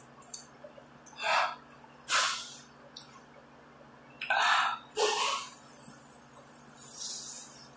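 A woman's quick, breathy puffs of air through the mouth, six or so in a row, as she eats a spoonful of food that is too hot.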